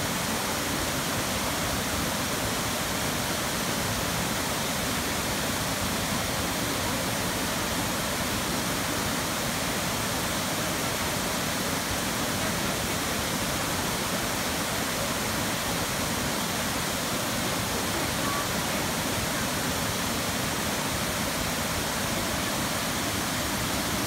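Waterfall cascading in small tiers over rock into a pool: a steady, even rush of falling water.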